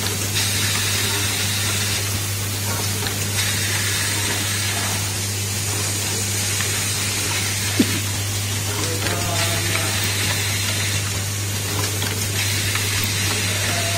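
Automatic bimetal contact riveting machine running: a low steady hum from its vibratory bowl feeder under a constant hiss, with one sharp click about eight seconds in.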